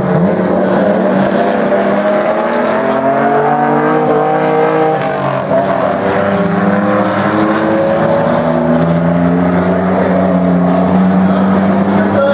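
V6-engined modified oval racing cars lapping the track, with more than one engine heard at once. Their pitch rises and falls as they accelerate and ease off through the bends.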